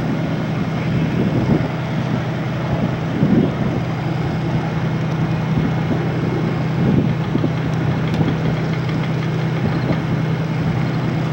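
An engine running steadily at a low, even speed, with a constant low hum and a few brief louder swells.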